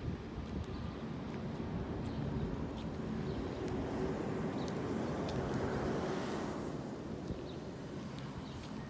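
Outdoor vehicle noise, swelling to a peak about six seconds in and then fading, as a vehicle passes by, with light wind on the microphone.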